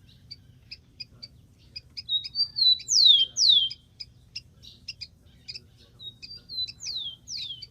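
Rufous-collared sparrow singing twice: each song opens with a few short notes and ends in two clear whistles that slide steeply down in pitch. Short sharp chips repeat about twice a second between the songs.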